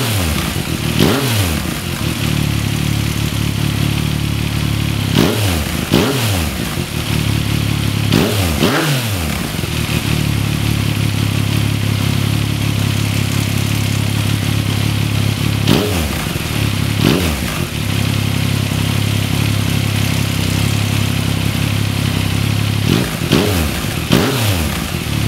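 A 2014 Yamaha MT-09's 847 cc inline-triple engine idles steadily and is blipped briefly several times. Its cam chain rattle is the sign of a failing automatic cam chain tensioner.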